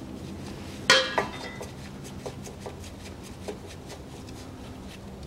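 Metal hex key clinking against the steel drain plug of a Volkswagen Tiguan's rear differential as the plug is worked loose: two sharp ringing clinks about a second in, then a few faint ticks.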